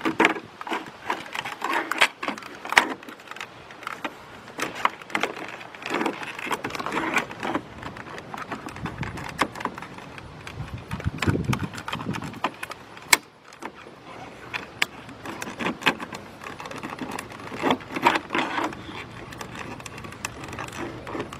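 Hands working a plastic trim piece into place, with scattered clicks, knocks and rattles of plastic and small hardware.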